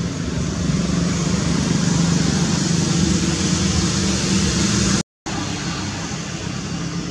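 Steady background noise of road traffic with a low engine hum. The sound cuts out completely for a moment about five seconds in.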